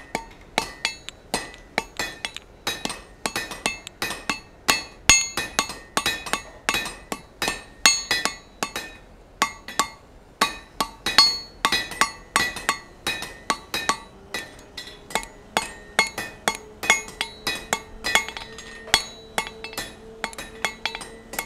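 Hand hammer striking red-hot round steel bar on an anvil, about three blows a second, each blow ringing with a bright metallic clink. The smith is drawing out a taper on the end of the bar.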